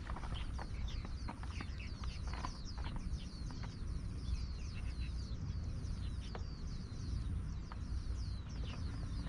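Small birds chirping, a rapid, continuous series of short, high notes that each sweep downward, over a low steady rumble.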